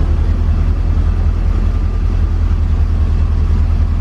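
1984 Corvette C4's V8 engine idling steadily, a low even rumble, with the electric cooling fan running.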